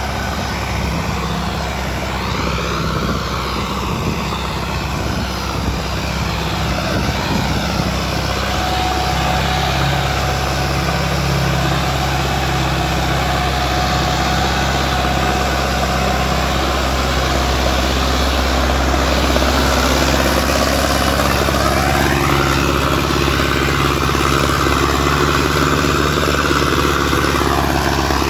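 Sonalika DI-55 tractor's diesel engine running steadily while it pulls a 20-disc harrow through ploughed soil, growing a little louder about two-thirds of the way through, where a higher whine rises in and then drops away near the end.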